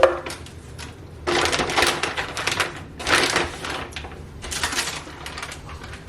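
A sharp knock, then bursts of crackling and rattling as frozen breaded chicken pieces are handled out of their bag and dropped in to weigh out a serving.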